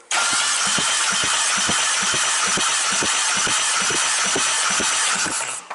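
Mercedes-Benz M270 1.6-litre four-cylinder petrol engine cranked over by its starter without firing, for a compression test on cylinder three, which reads 15 kgf/cm². It turns at a steady speed with regular pulses about four a second, then stops sharply near the end.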